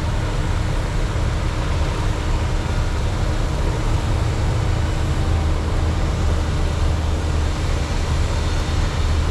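Farm machinery running steadily in a harvest field: a constant low engine hum under a broad, even rushing noise.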